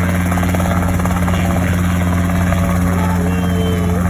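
A helicopter running close by: a steady low hum with a fast, even chop from the rotor blades.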